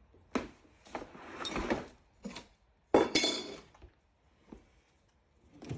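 Handling noises as 14-2 Romex cable is fastened to an electrician's fish tape: a series of short clinks, scrapes and rustles with quiet gaps between them, the longest about a second in and another about three seconds in.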